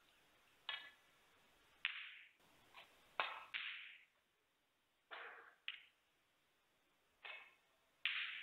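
Snooker balls being played: a string of about nine sharp clicks of cue on ball and ball on ball, each ringing briefly, the loudest about three seconds in and near the end.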